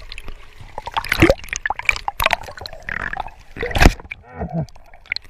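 Seawater splashing and sloshing close to the microphone in irregular sharp splashes, with a short gurgle about four and a half seconds in.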